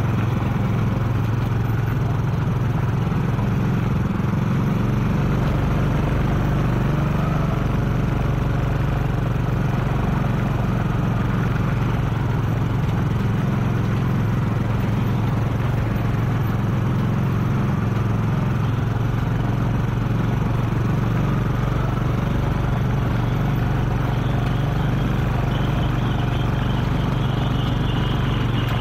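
Steady drone of engines on the move: a motorcycle close by and the single-cylinder diesel of a Kubota RT-120 Plus two-wheel tractor hauling a loaded rice trailer. The sound turns harsher and brighter near the end as the trailer is passed close up.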